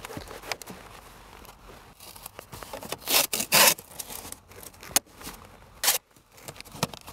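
Masking tape being pulled off and pressed down onto a vinyl dash cap: a few short rasping tearing and rubbing sounds, the longest about three seconds in.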